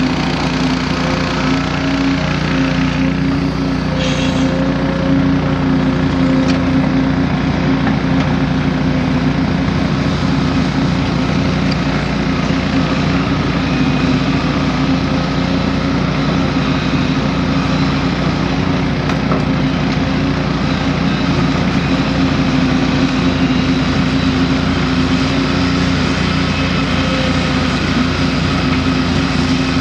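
Excavator's diesel engine running steadily, holding an even pitch throughout.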